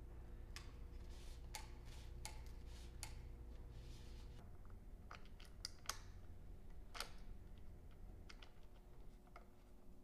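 Scattered light, sharp clicks and taps at an irregular pace, about a dozen, over a faint steady hum.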